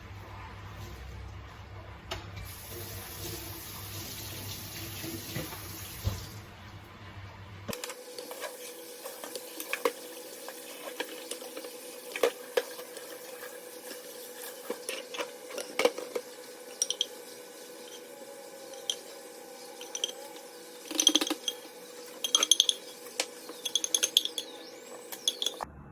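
Kitchen sounds: water running briefly, then scattered clinks and knocks of dishes and cutlery, some ringing briefly.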